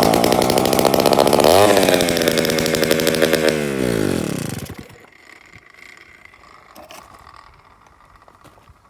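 Danarm DD8F chainsaw's 98cc Villiers two-stroke engine running loud and unladen on its first start in over ten years. It picks up briefly, then its pitch sags and it dies about five seconds in. The owner suspects the carburettor needs cleaning.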